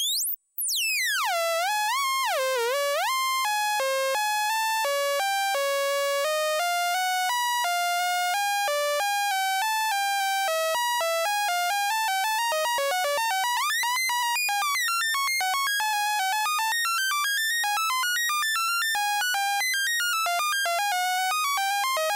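Synthesized alien sound effect: a sawtooth oscillator whose pitch is driven by a sample-and-hold LFO, jumping randomly from one pitch to another. It swoops smoothly for the first couple of seconds, then moves in distinct random steps, which come faster from about two thirds of the way through.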